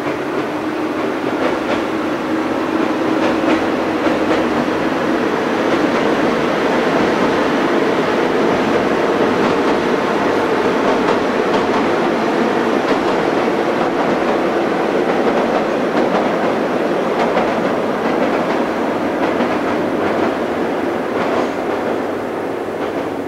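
KiRo 59 series diesel railcar set running across a steel trestle viaduct: a loud, steady rumble of wheels and engine on the steel bridge, with faint scattered clicks from the rails.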